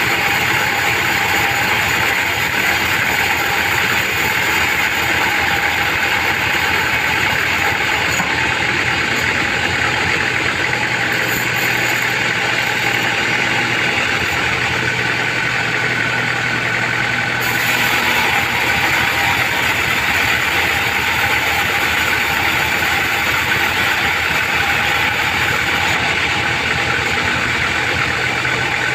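Band sawmill running and sawing a trembesi (rain tree) beam, a steady loud mechanical whir over a constant low hum. The highest hiss thins out for several seconds midway.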